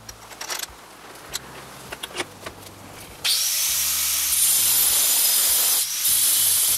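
A few light clicks, then about three seconds in an angle grinder's cut-off disc bites into a high-tensile steel bolt held in a vise, grinding steadily and loudly with a short dip near the end as the oversized bolt's end is cut off.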